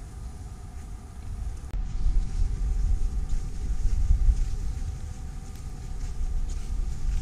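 Wind buffeting the microphone: an uneven low rumble that gets louder about two seconds in.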